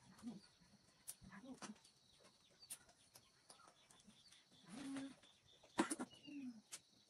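Wood fire crackling with scattered sharp pops, the loudest about six seconds in, over a steady high insect drone. A few short, low calls sound now and then.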